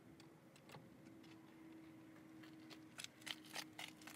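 Near silence with a faint steady hum, broken by a few short, quiet clicks and rustles about three seconds in.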